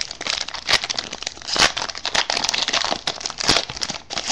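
Foil trading-card pack wrapper crinkling and crackling as it is pulled open by hand. It is a dense, continuous rustle of sharp crackles, louder in two stretches.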